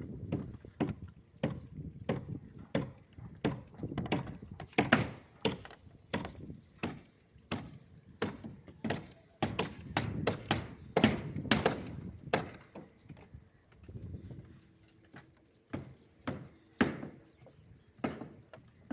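Repeated hard striking blows, about one and a half a second and uneven in loudness, pausing briefly for a couple of seconds in the second half.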